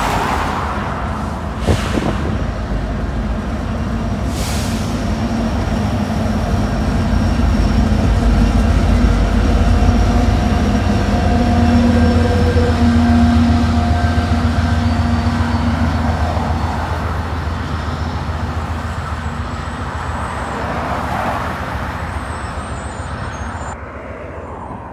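Union Pacific diesel locomotives passing, their engines' rumble and drone building to its loudest about halfway and then fading away. A sharp click sounds about two seconds in.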